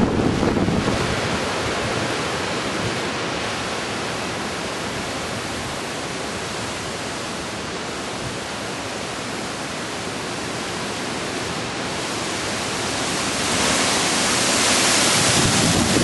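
Strong gusting wind rushing through tall trees and buffeting the microphone: a steady roar of noise that eases through the middle and swells again in a fresh gust near the end.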